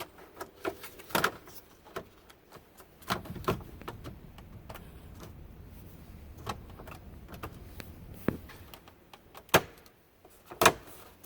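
Plastic dash trim being pressed back into place by hand: scattered clicks and knocks, with loud snaps about a second in and twice near the end as the clips seat.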